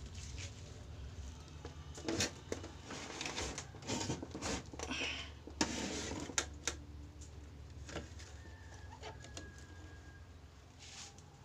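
Irregular clicks, taps and short scrapes of a TV circuit board and jumper wire being handled while the wire is soldered on, over a steady low hum.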